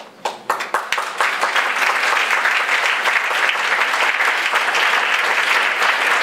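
Audience applauding: a few separate claps at first, swelling within about a second into steady, dense applause.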